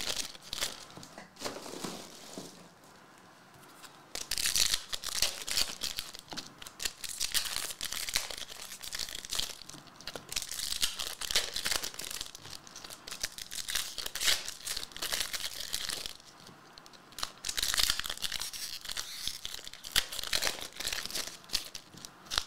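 Foil trading-card pack wrappers being torn open and crinkled by hand, in repeated bursts of crackling with two short lulls, about 3 s in and about 16 s in.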